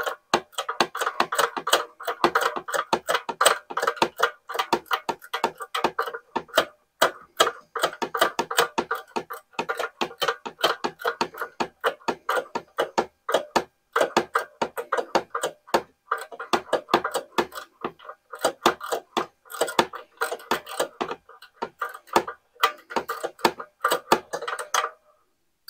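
Small ratchet wrench clicking rapidly as it backs out a screw, with a few short pauses, stopping near the end.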